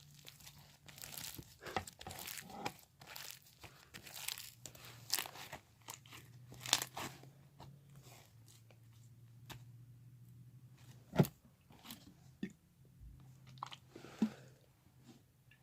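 Slime crackling and sizzling with irregular small clicks and pops as borax activator is worked into it, busiest in the first half, with one sharper pop midway.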